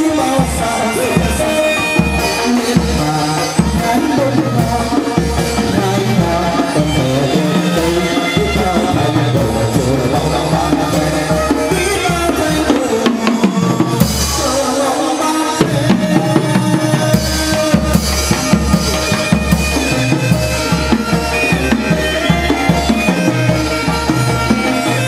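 Live chầu văn ritual music: traditional drums beat a steady rhythm under melodic instruments. The low drum beat drops out for a couple of seconds about halfway through, then returns.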